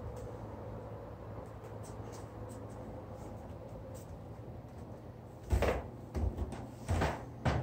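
Low steady hum of room tone, then near the end four heavy thumps about two-thirds of a second apart: footsteps on a wooden plank floor.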